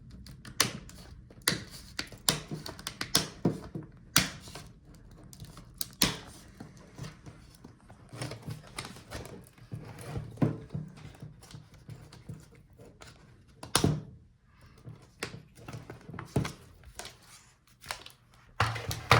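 Irregular sharp plastic clicks and knocks, some louder than others, as the hinge cover of an Acer Predator Helios 300 gaming laptop is worked loose and taken off.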